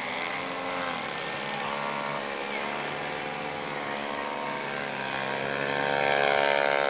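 Gas engine of a giant-scale radio-control aerobatic airplane, its pitch swinging up and down with the throttle as the plane hangs nose-up in a hover; about six seconds in it rises in pitch and gets louder as the throttle opens.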